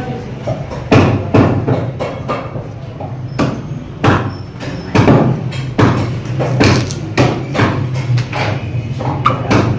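Meat cleaver chopping on a wooden block: irregular sharp knocks, about one or two a second, over a steady low hum.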